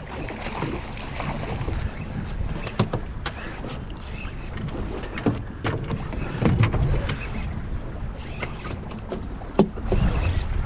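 Wind buffeting the microphone and water slapping a small boat's hull, with scattered knocks and thumps on the fibreglass deck as a false albacore is landed and handled.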